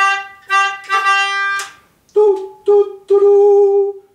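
Melodica, blown through a flexible mouthpiece tube, plays a single note three times, short, short, long. About two seconds in, a man's voice sings the same note back in the same short-short-long rhythm.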